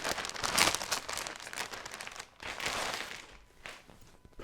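Plastic bag crinkling and rustling as a folded cloth pillowcase is pulled out of it, the crackling dying away about three seconds in.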